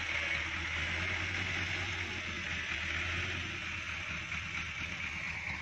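Tractor engine idling steadily in the background, a constant low hum under a steady high hiss.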